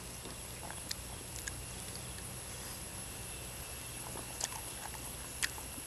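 Quiet outdoor background with a steady faint high-pitched hiss and a few soft clicks of hands picking food from plastic plates.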